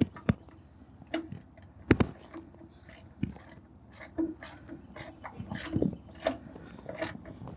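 Irregular metallic clicks and light knocks of hand tools and parts being worked, a few each second with short pauses.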